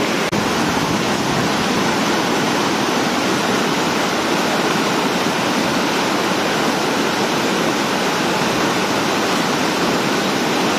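Floodwater rushing and churning over a concrete spillway: a steady, loud wash of white water, with a momentary dropout just after the start.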